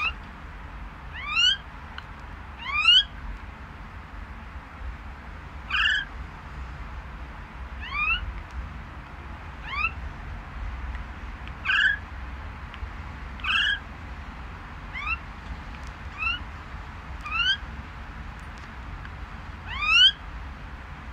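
Caged common myna giving about a dozen short calls, each rising in pitch, one every one to three seconds, the loudest about three seconds in and near the end.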